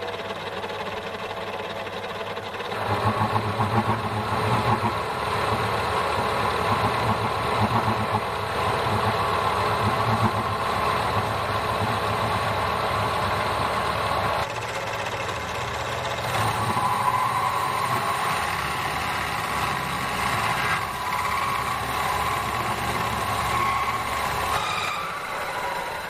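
Metal lathe running as a boring bar cuts inside a pulley's bore: a rough, rattling cutting noise that starts about three seconds in, eases for a moment past the middle, and stops shortly before the end.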